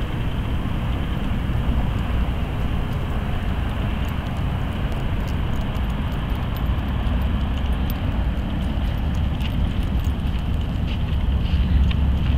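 Wind buffeting the microphone: a steady, fluctuating low rumble with a hiss above it, and a few light clicks near the end.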